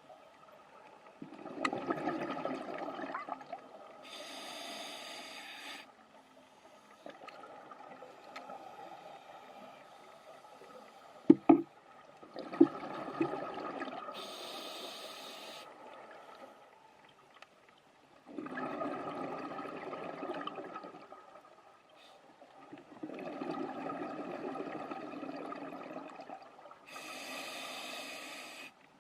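Scuba diver breathing underwater through a regulator: several long bursts of exhaled bubbles alternate with three short hissing inhalations. A couple of sharp knocks come about eleven seconds in.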